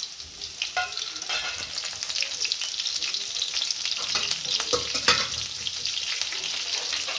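Green chilli pieces sizzling in hot oil with cumin and mustard seeds: a steady, dense crackle with a few sharp pops.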